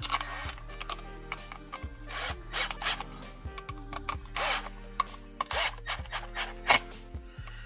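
Cordless power driver running in several short spurts, driving the screws of a Kydex holster's belt-attachment bracket.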